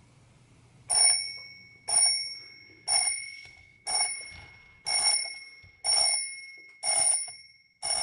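Bell alarm of a Seiko QHK054 alarm clock ringing: a small metal bell struck once about every second, eight strikes starting about a second in, each ringing out with a bright, clear tone before the next.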